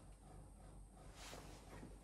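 Near silence: room tone with a low hum, and a soft brief rustle a little over a second in.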